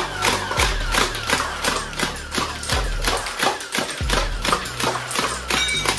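Toy MG3-style foam-dart machine gun firing on full auto, a sharp clack about three times a second.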